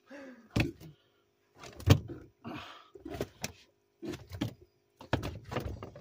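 Irregular knocks and thumps on a boat, about a second apart, with scraping and rustling between them.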